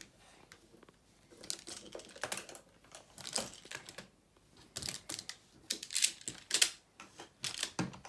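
Plastic magnetic building tiles clicking and clacking as they are handled and snapped together, in irregular clusters of sharp clicks with short pauses between.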